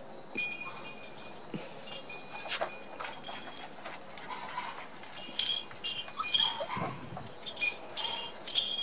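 Small bells tinkling in short, irregular jingles, more often in the second half, while one-month-old Border Collie puppies play, with occasional puppy sounds among them.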